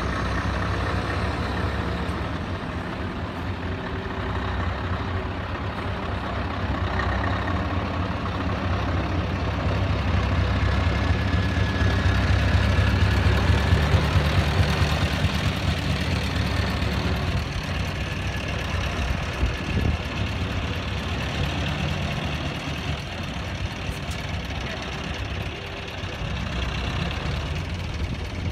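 Scania tractor unit's diesel engine running at low revs as the truck drives slowly past, through a side-exit exhaust pipe. Loudest about halfway through as it passes closest, then easing as it pulls away.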